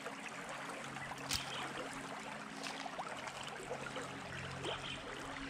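Shallow river water flowing with a steady hiss, broken by a few faint clicks and knocks, the sharpest about a second in.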